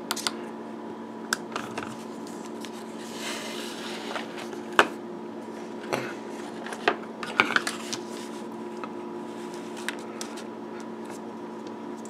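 Scattered light clicks and knocks of hands handling small items on a workbench, over a steady hum. The sharpest knocks come about five and seven seconds in, with a brief hiss a few seconds in.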